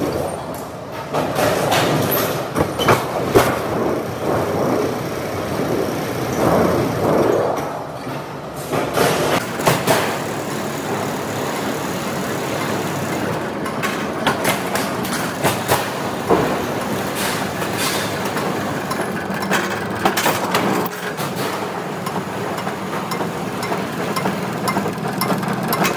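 Sheet-metal leveling rollers running while galvanized steel sheet passes through them, with frequent irregular clanks and rattles of the metal sheet. A steadier low machine hum sets in partway through.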